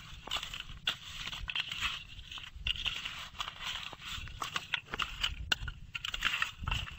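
Hands rubbing and turning wet raw pomfret pieces in a steel plate: irregular wet scraping with many small clicks of fish and fingers against the metal.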